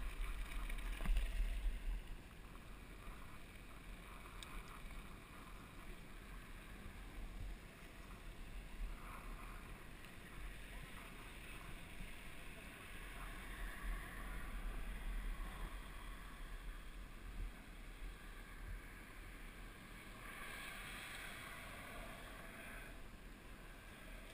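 Muffled low engine rumble and wind noise on a helmet-mounted camera as the rider's vehicle moves slowly, loudest in the first two seconds and then steadier and quieter.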